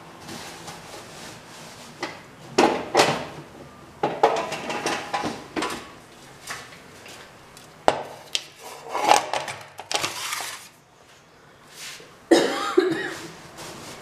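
Kitchen containers and packets being handled on a counter: irregular knocks, clatter and rustling in several short bursts.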